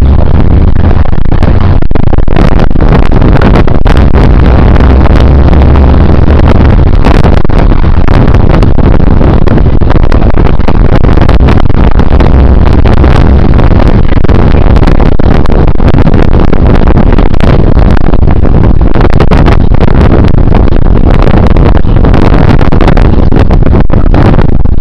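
A vehicle driving along a rough road: a loud, overloaded rumble of engine and road noise with frequent crackles and knocks.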